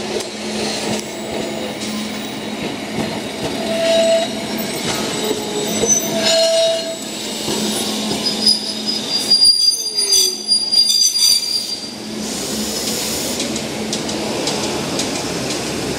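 Type 780 tramcar's steel wheels squealing on a tight street-track curve: high squeals come and go, loudest around ten seconds in as the car passes close, over a steady low hum.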